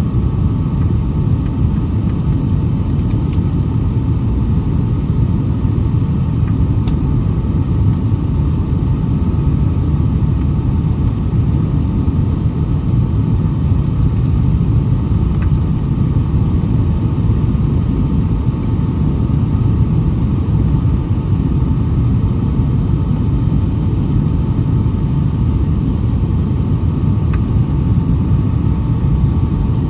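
Steady cabin noise inside a Boeing 757-200 airliner in flight: a loud, even rumble of engine and airflow with a faint steady whine above it.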